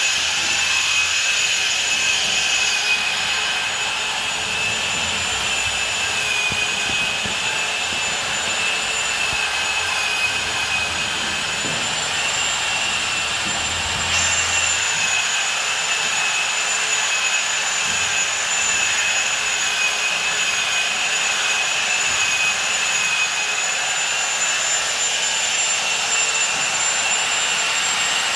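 Electric motor of a power tool running continuously with a steady high-pitched whine, its pitch shifting slightly a couple of times.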